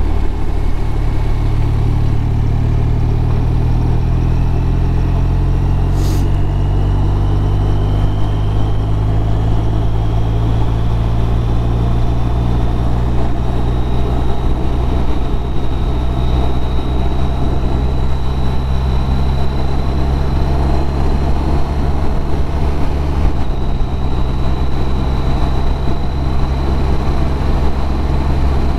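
BMW R1200RT's flat-twin boxer engine pulling steadily as the motorcycle picks up speed, with wind rushing over the bike-mounted camera. A faint whine rises slowly in pitch over the first half and then holds; a single click about six seconds in.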